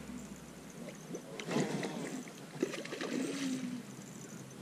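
A hooked trout splashing at the water's surface close in as it is played on light tackle, in irregular bursts.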